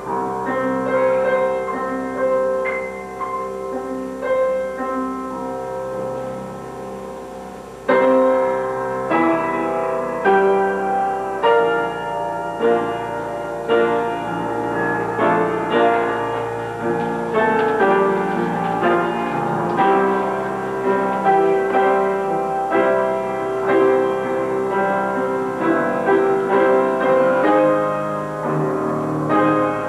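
Piano playing a slow piece: soft notes at first, then louder, fuller chords from about eight seconds in.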